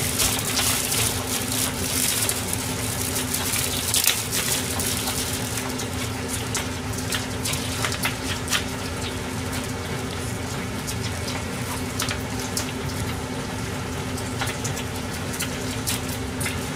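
A plastic bag crinkles as a head of lettuce is taken out, then crisp snapping and tearing as the leaves are pulled off, over a steady low hum. The crinkling is busiest in the first few seconds, and single crisp snaps follow through the rest.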